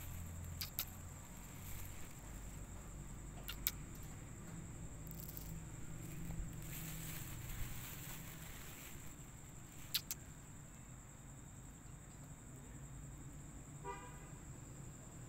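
Street background of low traffic rumble with a steady faint high whine, broken by a few sharp clicks and, near the end, one short pitched toot.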